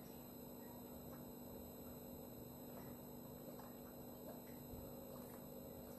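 Near silence: a faint steady hum of room tone, with a few faint swallows as a person drinks from a plastic water bottle.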